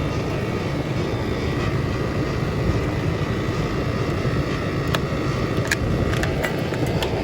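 Outdoor condensing unit of a central air conditioner running steadily, its compressor giving off an odd noise that the technician suspects means something is wrong with the compressor. A few light clicks near the end.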